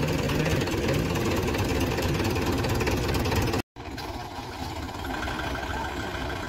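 Tractor diesel engine running steadily. After a short break about halfway through, a Kubota tractor's diesel engine runs while it tows a loaded sugarcane tractor and trolley, with a steady high tone over the engine.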